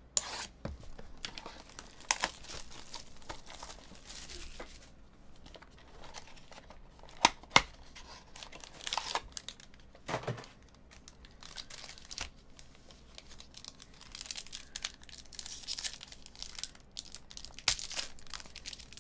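Donruss Optic trading-card box being opened by hand: wrapper and cardboard tearing and crinkling in irregular rustles, with two sharp snaps about seven seconds in and a duller knock about ten seconds in.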